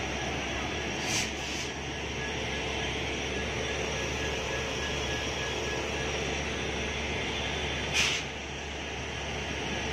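Steady running hum of a standing WAG-9 electric locomotive while it is uncoupled from a freight train, with two short sharp hisses of air, about a second in and, louder, about eight seconds in.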